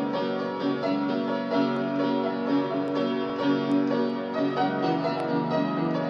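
Piano played by hand: a steady flow of melody notes over chords, with no singing.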